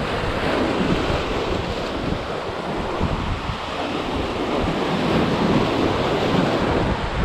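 Surf washing and breaking over the boulders of a rock jetty, a steady rushing, with wind buffeting the microphone.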